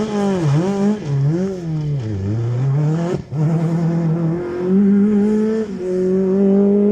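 Rally car engine revving up and down sharply through a bend, several quick rises and falls in pitch, then a short crack about three seconds in and the car pulling away with the engine note climbing through upshifts.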